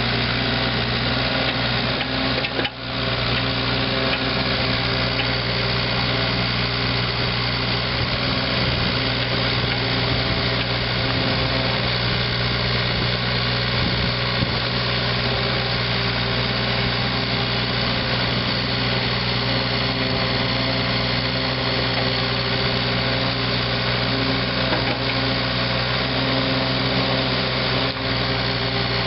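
The Yanmar three-cylinder diesel engine of a 2001 Kobelco 35SR compact excavator running steadily, with a brief dip in level about three seconds in.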